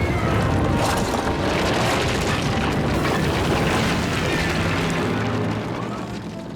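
Loud cartoon action sound effects, a dense rumbling boom, with music underneath that comes forward near the end.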